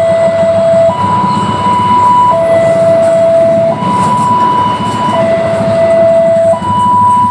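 Level-crossing warning siren alternating between a high and a low tone, each held about a second and a half, over the low rumble of passenger train coaches rolling past.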